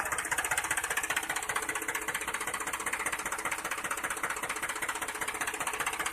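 A steady, rapid mechanical rattle, like a small engine running.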